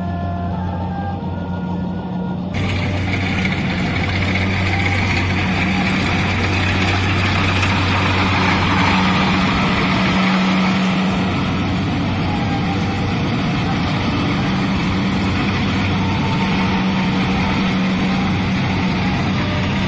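Kubota DC-70 combine harvester running steadily: an engine hum under a loud, even mechanical whir from the harvesting machinery. The louder machine noise cuts in suddenly about two and a half seconds in.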